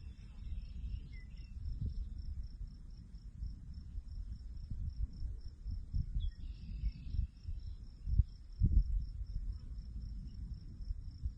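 A cricket chirps steadily at about four pulses a second over a low, uneven rumble that swells loudest about eight to nine seconds in. A few faint, brief chirps come near the start and again about six seconds in.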